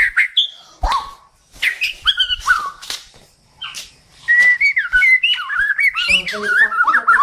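White-rumped shama (Bornean murai batu) singing: short, separate whistled phrases and sharp notes with pauses, breaking about four seconds in into a continuous fast run of rising and falling whistles.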